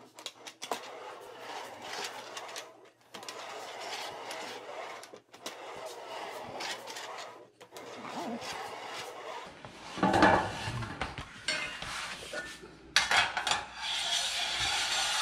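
Metal roofing panel and a hand bending tool scraping and rubbing along a curved wooden form in repeated strokes with short pauses. A louder knock with a rattle comes about ten seconds in, and a steady rushing noise follows near the end.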